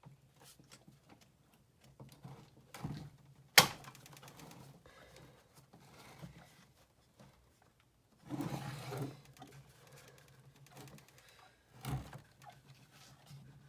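Scattered clicks and knocks of objects being handled, over a faint steady low hum. One sharp knock about three and a half seconds in is the loudest sound, and a short scraping rustle comes a little past halfway.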